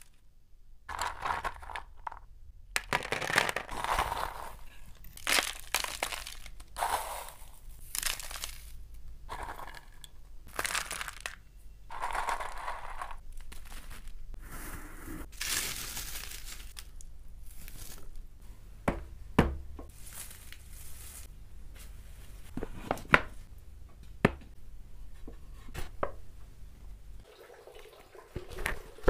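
Dried herbs, mugwort leaves and shredded dried tangerine peel, crackling and rustling as handfuls are picked up and dropped into a woven bamboo tray. The sound comes as a series of crisp crinkly bursts, with a few sharp ticks in the second half.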